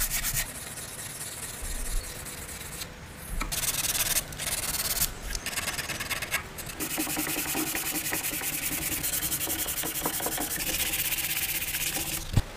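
Hand sanding and scraping of small wooden pieces: a series of rubbing, rasping passes made of many quick strokes, with a sharp click near the end.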